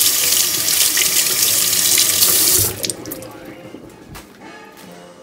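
Kitchen faucet running water over a piece of fruit held in the stream and into a stainless steel sink, with an even splashing hiss. The water shuts off suddenly about two and a half seconds in.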